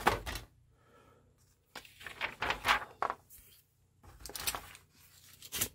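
Paper rustling from a model kit's instruction booklet being handled and its pages turned, in several short bursts, the longest about two to three seconds in.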